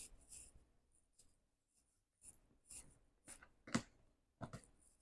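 Faint, scattered rustling and crinkling of packaging being handled, in short separate bursts.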